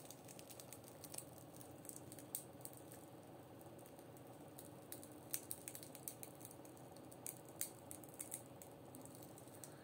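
Faint, irregular crackles and clicks from a cracked tempered-glass phone screen protector being bent by hand, its glass fragments cracking and grinding against each other on the film backing.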